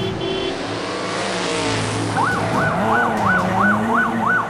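Police siren sound effect for a toy police car: a fast, regular up-and-down wail, about three cycles a second, that comes in about halfway, after a rushing vehicle noise.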